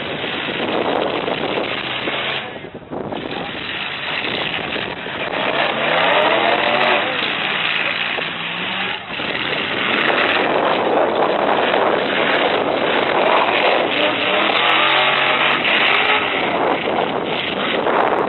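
Engines of several full-size pickup trucks revving in a demolition derby, their pitch rising and falling over a dense, continuous din.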